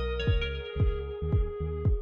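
Background electronic music with a steady kick-drum beat, about two beats a second, under sustained synth notes.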